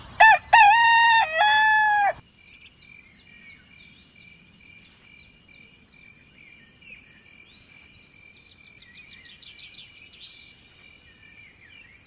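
A rooster crows once, loud, for about two seconds at the start. After it, small birds chirp over a steady high insect trill.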